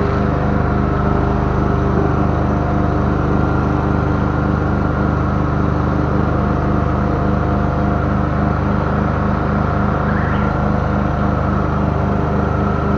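Engine of a high-pressure drain-jetting machine running steadily at constant speed.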